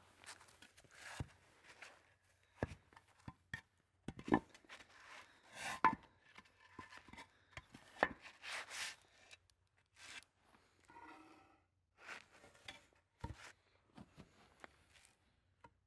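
Scattered short knocks and brief scraping rubs, irregular and moderately quiet, as gloved hands handle and tap old autoclaved aerated concrete blocks.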